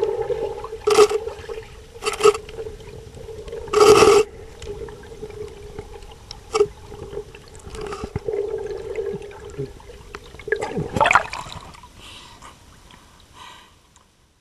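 Underwater recording from a diving robot: a steady electric-motor hum, broken by short bursts of water noise. About eleven seconds in, a whine rises and falls. The sound cuts out near the end.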